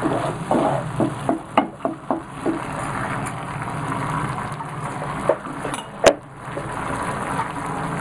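Onions and sauce sizzling in a hot non-stick frying pan. A spatula knocks and scrapes against the pan several times in the first two or three seconds, and there is one sharp click about six seconds in.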